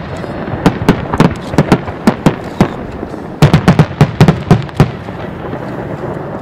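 Wide starmine fireworks barrage: rapid volleys of aerial shell bursts going off as sharp bangs several a second, densest about halfway through, then thinning out near the end.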